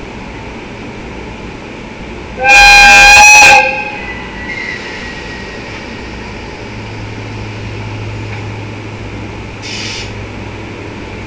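ED76 electric locomotive sounding its horn once, a loud blast of a little over a second, given as the train departs. A steady low hum from the locomotive follows as it starts to move, with a brief hiss near the end.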